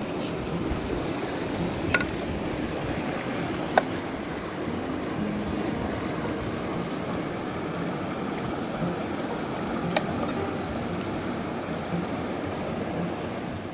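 Steady rush of a shallow stream flowing over rocks, with a few sharp taps of eggs being cracked on the rim of an enamel bowl: one about two seconds in, a louder one with a short ring near four seconds, and another about ten seconds in.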